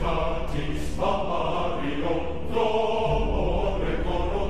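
Background music with sustained choir-like voices, the chords changing about every second or so.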